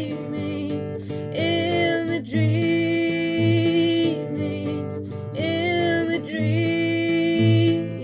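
Music from a song: guitar under two long held melody notes that bend in pitch, over a steady low beat.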